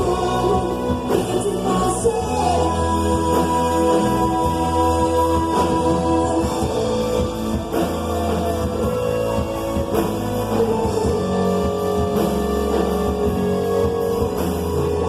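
A band playing a Christian gospel-rock song, with singing over guitar and drums.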